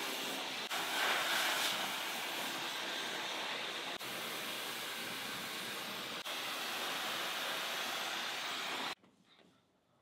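Muttus M12X bladeless hair dryer blowing on its coolest heat setting: a steady rush of air with a faint hum. It cuts off suddenly near the end.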